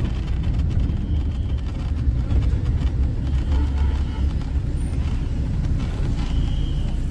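Moving bus heard from inside the passenger cabin: a steady low engine and road rumble.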